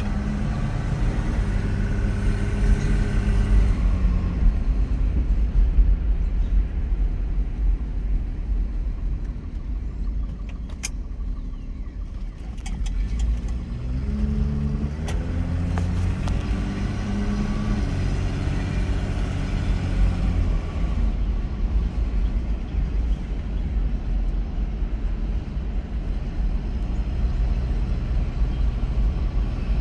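1967 Ford Mustang's inline six-cylinder engine running as the car drives, with road rumble underneath. The engine note climbs in pitch twice, over the first few seconds and again about halfway through, as the car picks up speed.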